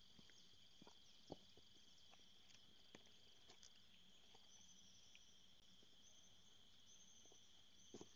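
Faint, steady insect chirring: a continuous high buzz with a pulsing trill above it. A few soft knocks, the loudest about a second in.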